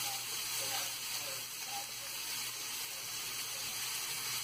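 Minced pork and sliced red onion sizzling steadily in hot oil in a stainless steel frying pan.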